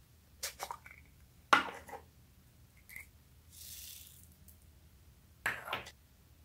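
Hard plastic clicking and knocking as the snap-on lid of a small plastic container is worked off, the loudest knock about a second and a half in. Then a brief soft rattling hiss of foam beads pouring out onto slime in a glass dish, and another clatter of plastic near the end.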